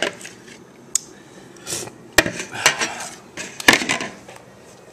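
Spoon and bowl being handled: a few sharp clinks and knocks with a brief scrape between, the loudest clink nearly four seconds in.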